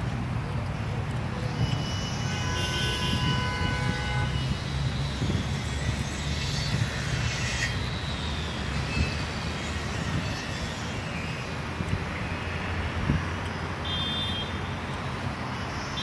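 Steady outdoor background noise, mostly a low rumble, with brief high-pitched tones about three seconds in and again near the end.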